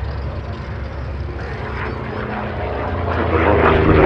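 Corsair fighter's Pratt & Whitney R-2800 radial engine running in display flight, a steady propeller-driven note that grows louder near the end as the aircraft comes closer.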